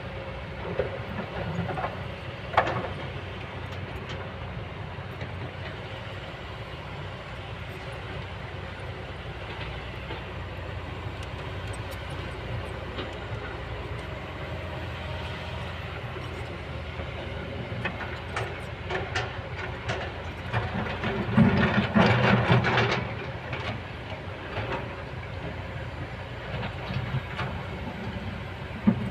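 Kobelco excavator running steadily, with scattered metallic clanks and knocks and a louder stretch of clanking and rumbling about three quarters of the way through.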